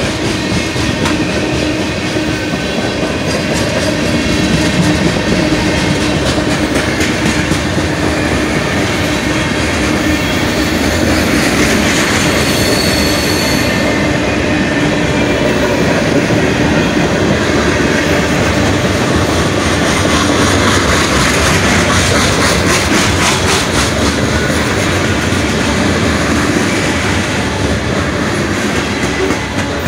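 Freight train cars rolling past close by: a steady rumble with the clickety-clack of wheels over the rail joints, and a short high wheel squeal about halfway through.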